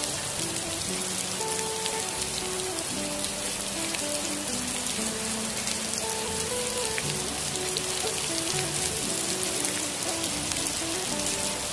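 Rain falling steadily on bare soil, leaf litter and puddles, with soft background music playing a simple melody underneath.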